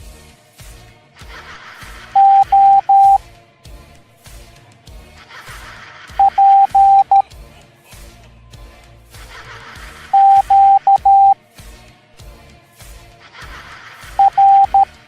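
Morse code letters sounded as a single steady electronic beep, keyed into short and long tones in a group of dots and dashes about every four seconds, over quieter background music with a steady beat.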